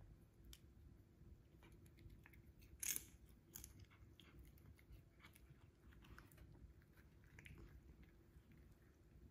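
A cat chewing a small crunchy treat: faint wet crunching and clicking, with one louder crunch about three seconds in.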